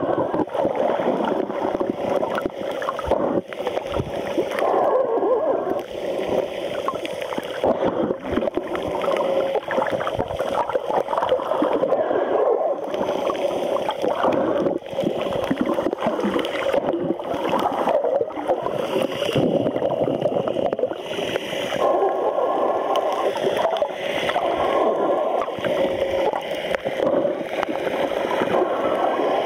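Water heard underwater through the sealed body of a waterproof camera: a continuous muffled gurgling and sloshing, dotted with many small crackles and clicks.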